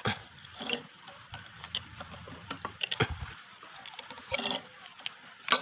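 Metal tool clinking and scraping against the seized rotor of an opened hermetic compressor as it is pried upward to free it, with a sharp metal knock near the end.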